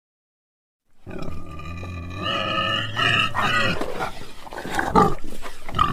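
An animal call sound effect, a loud roaring, grunting cry with several pitched calls that bend and break, starting about a second in after silence.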